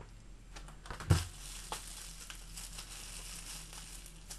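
Plastic and paper packaging crinkling and rustling as a fingerboard is unwrapped by hand, with one sharp knock about a second in.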